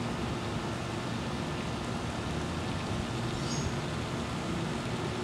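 Steady background rumble and hiss, like distant road traffic, with faint steady humming tones.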